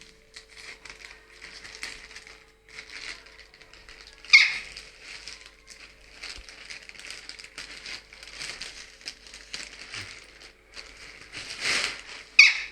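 Packaging being handled: irregular rustling and crinkling, with two sharper, louder scrapes, one about four seconds in and one near the end.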